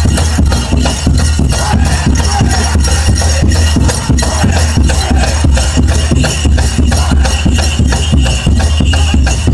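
Powwow drum group pounding a big drum in a fast, steady beat, with the singers' voices over it, for the grass dance. The loud recording sounds harsh and rasping.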